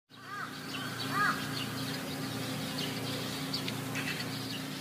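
Birds calling and chirping over a steady low hum, as in a tropical forest. Short arching calls come about a quarter second in, and a louder one comes a little over a second in.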